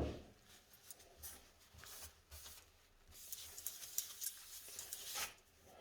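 Faint, irregular scratchy rubbing of a cloth wiping down plexiglass with solvent to degrease it, coming in about three seconds in, with a few light ticks before it.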